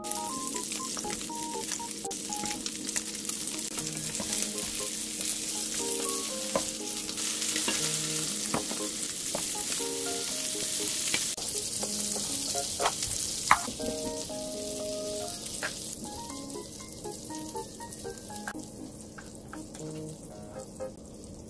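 Egg-dipped patties sizzling in hot oil in a nonstick frying pan, with a few sharp clicks as they are turned with a metal spatula. The sizzle fades over the last few seconds, and light background music plays underneath.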